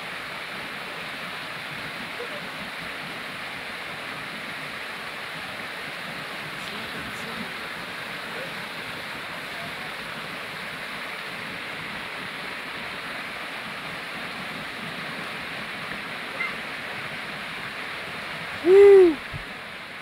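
Small waterfall pouring into a rock pool: a steady rushing of water. About a second before the end, a loud, short human yell that rises and falls in pitch.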